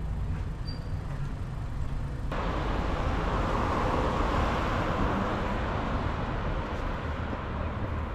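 Roadside traffic: a car passing on the street, its tyre and engine noise swelling a few seconds in and then fading away, over a low rumble of outdoor ambience.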